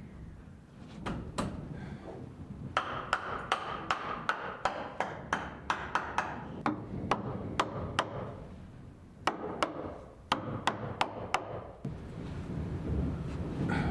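Hand hammer driving nails into wooden framing blocking: two runs of quick, sharp strikes, about three a second, with a short pause between them.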